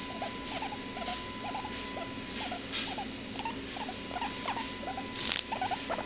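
Hairless guinea pig making a string of short, soft calls, about two or three a second, while being stroked. A brief loud rustle cuts in about five seconds in.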